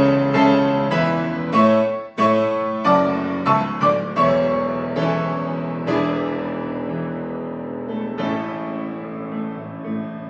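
Solo piano playing a hymn arrangement in struck chords, with a brief break about two seconds in and a chord left to ring and fade before the next one comes in near eight seconds.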